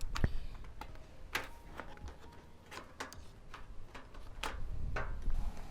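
Sharp clicks and taps, irregular, roughly every half second, from hand tools working the fasteners of a car's plastic inner fender liner.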